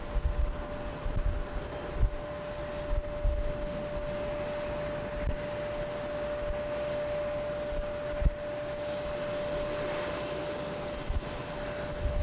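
Boeing 737 jet engines at takeoff thrust: a steady rumble with one high whine held at a single pitch, while low gusts of wind buffet the microphone now and then.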